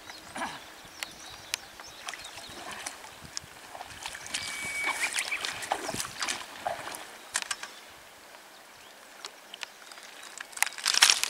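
A hooked brown trout thrashing and splashing at the river surface while it is played in. There is a run of splashing from about four to seven seconds in, and louder splashes near the end.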